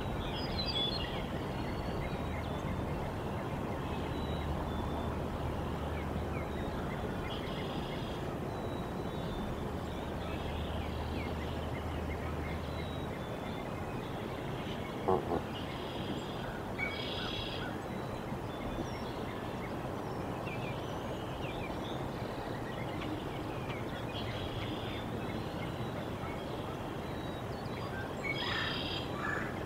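Steady outdoor background hiss with scattered small songbird chirps and a low hum through the first part. A single click comes about halfway, and near the end a Canada goose at the nest starts calling in a quick series of honks.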